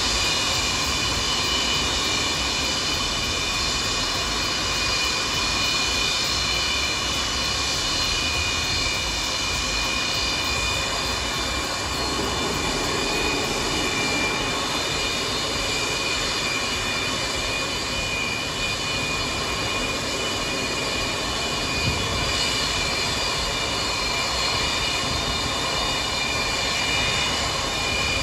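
Antonov An-124-100's four Progress D-18T turbofan engines running at taxi power: a steady high turbine whine of several tones over a constant rushing roar.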